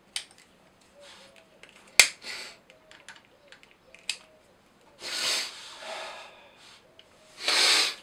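Butane utility lighter clicking three times as it is sparked, with a faint hiss as its flame is passed over a fresh resin pour to pop surface bubbles. Near the end come two longer breathy rushes of noise.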